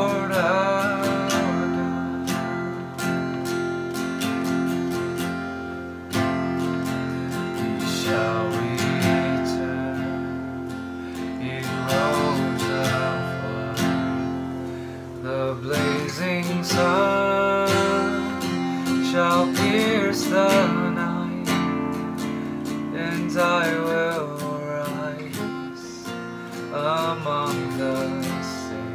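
Acoustic guitar strummed steadily in a slow worship song, with a wavering melody line held over the chords.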